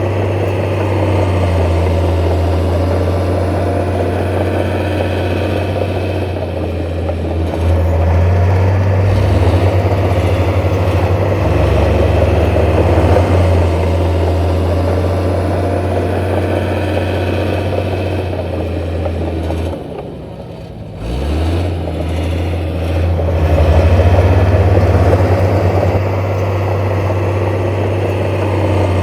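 Heavy diesel engine of earthmoving machinery running steadily with a strong low hum. About twenty seconds in it drops briefly and quieter, then its pitch climbs back up as it takes throttle again.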